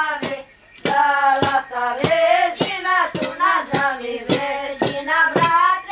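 Children singing a Christmas carol together in long held notes, with sharp knocks keeping time about twice a second. There is a short break in the singing about a second in.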